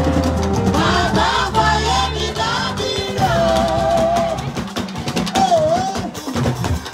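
Live amplified fuji-style music: women singing into microphones over bass and percussion, with one long wavering held note about three seconds in.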